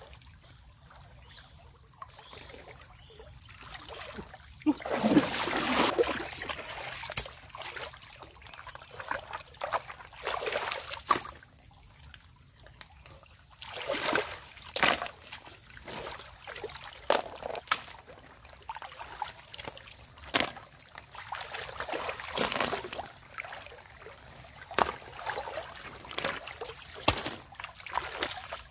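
Water splashing and sloshing in a shallow stream as hands work in it, in irregular bursts, the loudest about five seconds in, with quieter trickling water between.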